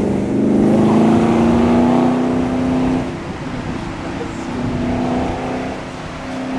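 V8 engine of a Cobra 427 roadster being revved: it holds a high, loud rumble for about three seconds, eases back toward a lower idle, then picks up again near the end.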